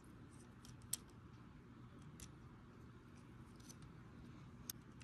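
Near silence with a few faint sharp clicks of plastic parts on a transforming toy robot figure being handled: one about a second in, a weaker one a little later, and another near the end.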